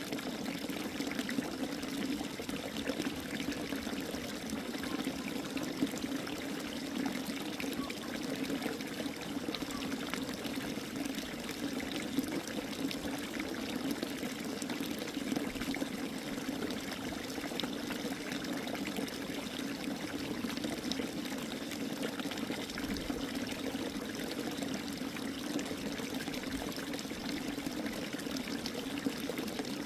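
Water pouring and trickling steadily, one unbroken splashing flow.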